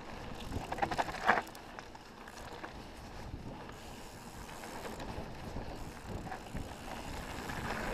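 Mountain bike riding fast down a dirt and gravel trail: tyre roar and frame rattle mixed with wind rushing over the microphone, with a few short, sharper noises about a second in.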